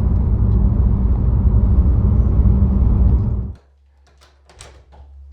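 Car engine and road noise heard from inside a moving car, a steady low rumble that cuts off abruptly about three and a half seconds in. After that it is quiet apart from a faint hum and a few light clicks and knocks.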